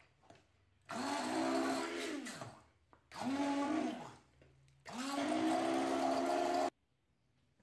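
Electric stick blender run in three bursts in a stainless steel pot, pureeing soft cooked slices in water. The motor whirs up in pitch at the start of each burst, winds down after the first two, and cuts off sharply after the third.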